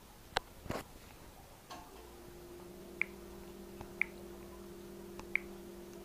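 Faint background sounds: a few light clicks, then a steady low hum that sets in about two seconds in, with short high ticks roughly once a second.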